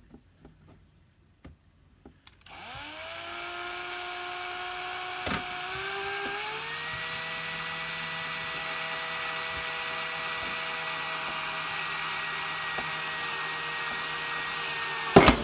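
Small electric drill starting about two seconds in, its whine rising as it comes up to speed and then running steadily while it drills holes in an RC car's plastic body shell; it ends with a loud clatter near the end.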